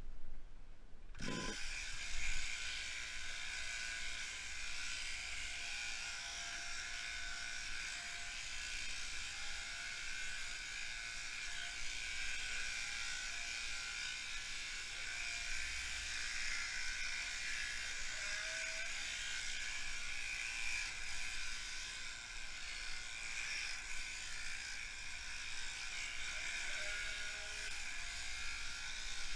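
Electric sheep-shearing handpiece whirring steadily as its comb and cutter work through a lamb's fleece. It switches on suddenly about a second in.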